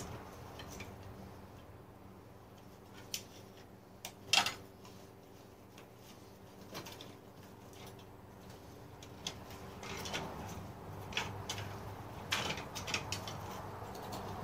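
Scattered light clicks and taps of small parts being handled, the loudest about four seconds in and several more close together near the end, over a faint steady low hum.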